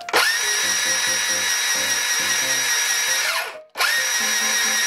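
Makita PB180D cordless portable band saw running with no load while a stick of cutting wax is held against the moving blade to lubricate it. The motor runs with a steady whine for about three seconds, winds down and stops, then starts again a moment later and keeps running.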